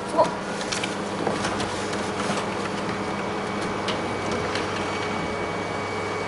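Office photocopier running with a steady hum while it makes a copy, with a sharp click just after the start and a few lighter clicks from the lid and controls being handled.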